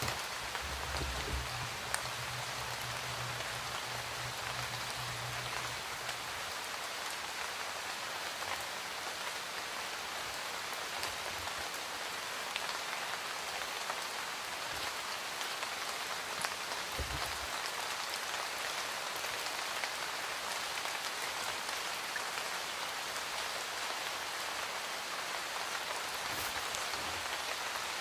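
Steady, even hiss of rain falling, with a low hum during the first few seconds and a few faint ticks.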